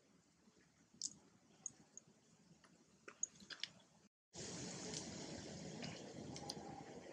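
Macaque biting and chewing a corn cob: faint, scattered small clicks and wet chewing sounds. About four seconds in the sound cuts out for a moment and returns with a louder, steady background hiss.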